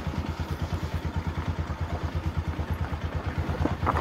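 Motorcycle engine running at low revs under light throttle with a steady, even beat of about a dozen pulses a second.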